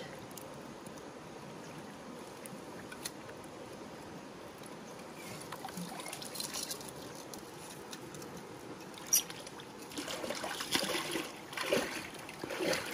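Live catfish moving in a bucket of muddy water, making trickling and splashing water sounds. A single sharp knock comes about nine seconds in, and the splashing gets busier over the last few seconds.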